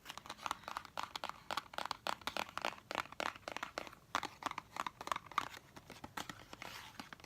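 Dense crackling and crinkling close to the microphone, many small sharp pops a second, as a squishy, sticky play compound is squeezed and pulled by hand.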